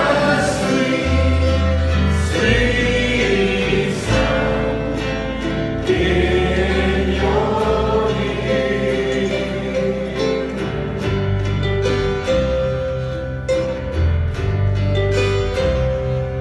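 Gospel-style worship song: a choir singing over guitar accompaniment. In the second half the voices thin out and the plucked strings come to the fore.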